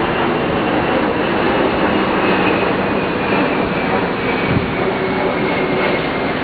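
Jet airliner passing low overhead: a loud, steady engine rush with a high whine that slowly falls in pitch as it goes by.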